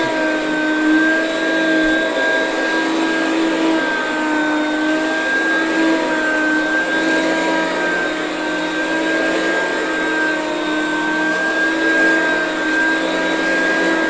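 Oreck XL two-speed upright vacuum cleaner running steadily over a rug, its motor giving a steady whine that wavers slightly in pitch.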